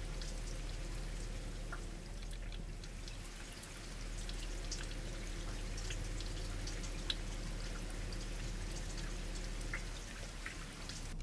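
Floodwater running and trickling steadily across a road, with scattered small drips and ticks.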